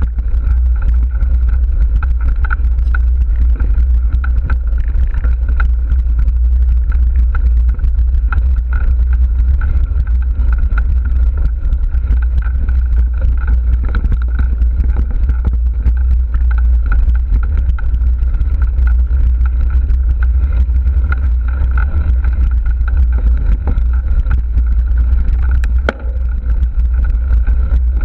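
Wind rumbling loudly on an action camera's microphone while mountain biking on dirt singletrack, with a steady higher hum and frequent small rattles and ticks from the bike on the rough trail.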